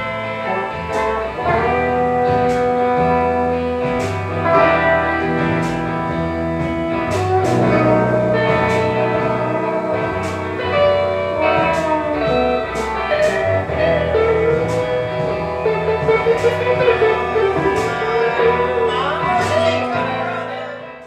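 Guitar-led music with regular drum hits, dying away at the very end.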